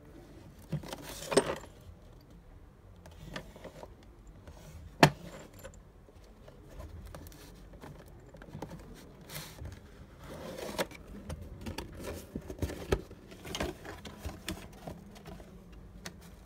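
A cardboard box holding a mortise lock set is handled and opened, with scrapes and taps on the cardboard and a sharp knock about five seconds in. Later comes a run of light clicks and rattles from the metal lock parts inside.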